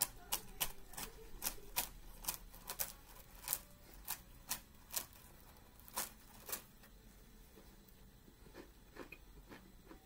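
Matzah crackers being bitten and chewed: a run of sharp, crisp crunches at an irregular pace, coming thick for the first six seconds or so, then fewer and fainter.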